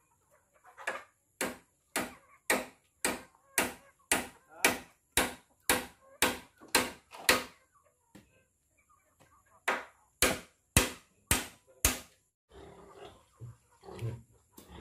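Repeated sharp blows of a hand tool striking wood, about two a second: a run of thirteen strokes, a pause of about two seconds, then five more.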